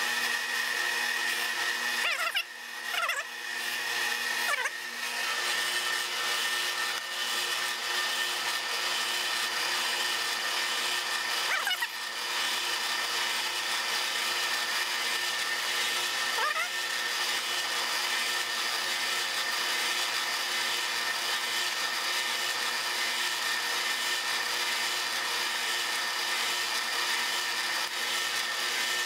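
Metal lathe running while a 55/64-inch twist drill in the tailstock bores into the end of a spinning steel bar, making a steady cutting hiss over a constant machine tone. A few short pitch slides come in the first few seconds and twice more later.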